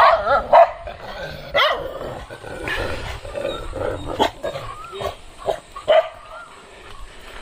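A dog barking in short, separate barks at irregular intervals, loudest near the start.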